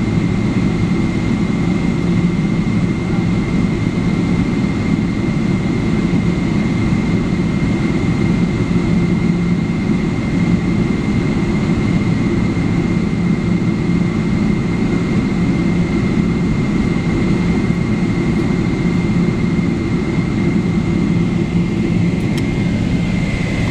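Boeing 777-300ER's GE90-115B turbofan engines at idle while the airliner taxis, heard from inside the cabin: a steady low rumble with a thin, steady high whine.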